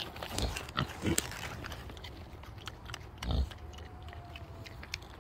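Baby pigs grunting, three short low grunts amid small clicks.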